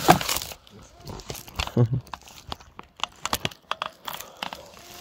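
Dry leaf litter and twigs on the forest floor rustling and crackling in short, irregular snaps.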